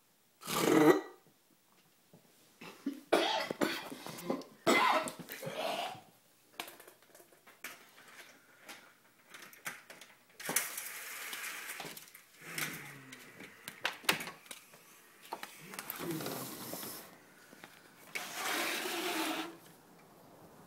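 A sleeping person snoring in uneven, irregularly spaced bursts: a short loud one about half a second in, then a cluster of shorter snores, and longer breathy snores later on.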